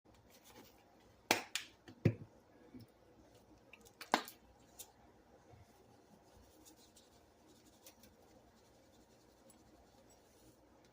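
A few sharp clicks and knocks from kitchen items being handled while a steak is seasoned. Three come close together about a second and a half in, one comes near four seconds, and the rest is quiet.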